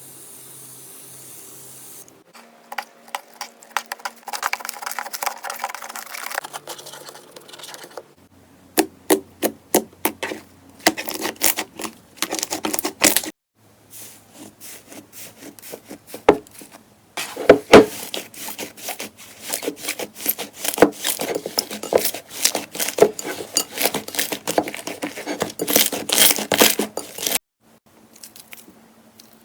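Slime being squeezed, poked and stretched by hand: dense runs of short crackles, pops and squelches, in several separate clips that cut from one to the next.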